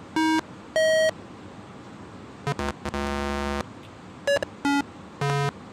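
A homemade CMOS divide-down keyboard sounding short electronic tones one after another, about six or seven separate notes each at a different pitch, as its notes are tested key by key. The notes all sound, showing its oscillators and dividers are working.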